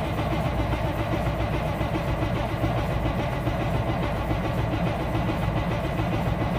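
Cummins M11 diesel engine turning over on the starter in a steady, rhythmic crank without catching. It fails to fire, which the owner puts down to diesel leaking from a loose fuel fitting.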